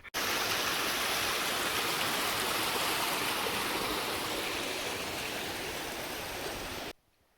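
Fast-flowing mountain stream water rushing steadily, cutting off abruptly near the end.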